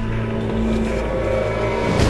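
Soundtrack music with a low, steady drone like a vehicle engine, its pitch rising slightly in the middle.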